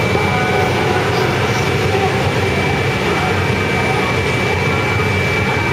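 Steady loud hum and hiss of an indoor play hall, with a constant thin high tone and faint, distant children's voices.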